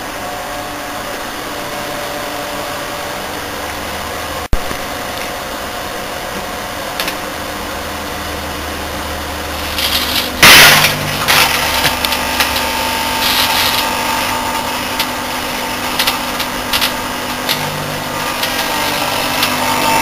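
Home-built twin-magnetron microwave oven running, its transformers giving a steady mains hum with a light bulb inside lit with plasma. About halfway through, a loud sharp burst, after which a higher steady whine and scattered crackles join the hum.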